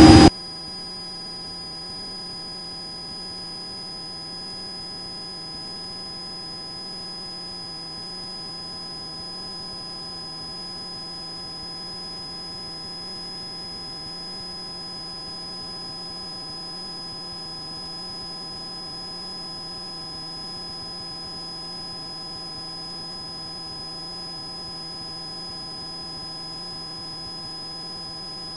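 Steady electrical hum and whine in an aircraft intercom audio feed: several constant tones over a low hiss, unchanging throughout.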